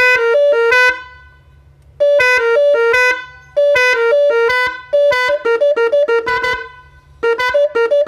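Three-trumpet electric 'telolet' car horn, its snail-shaped trumpets tuned to about 400, 500 and 600 Hz, playing its tune through the control module. It sounds very loud, in about five phrases of quick short notes hopping between pitches, with short pauses between phrases.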